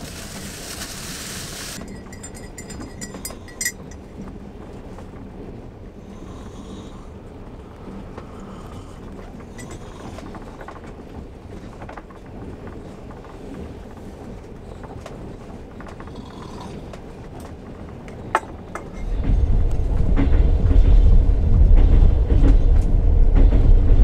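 Steady low rumble inside a sleeper train carriage, with occasional clinks and creaks as a mug and belongings are handled. About nineteen seconds in, loud bass-heavy background music comes in over it.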